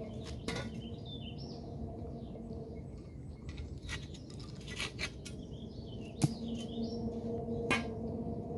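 Scattered metal clicks and knocks, with a sharp knock about six seconds in, as a rusty magnet-fishing find is handled. Small birds chirp over a steady low hum.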